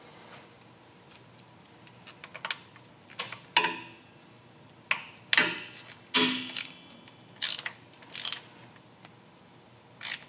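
Irregular short metallic clicks and rattles of hand tools and parts as a motorcycle's inner shifter arm is fitted onto its splined shaft and its bolt started.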